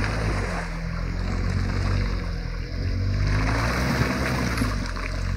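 Quad bike (ATV) engine running under load, its note rising and falling as it churns through a water-filled mud rut, with splashing and sloshing of water and mud.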